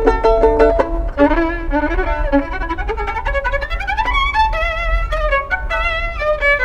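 Solo violin playing a bowed melody, with vibrato on the held notes in the second half. In the first second there is a run of short, quickly repeated notes.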